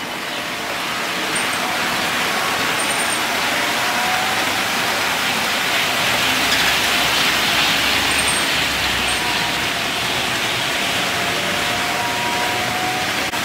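OO gauge model train running past on the track: the Hornby Class 60 locomotive and its train of coaches and wagons make a steady running noise that swells to its loudest about halfway through as they pass. A thin squeak runs through it, which comes from the trailing wagons and coach, not from the Class 60.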